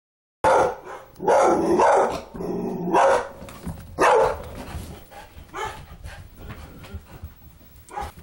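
A dog barking sharply about five times in the first half, with growling in between, then quieter snorts and scuffles. It is fear-barking at a doll it is scared of.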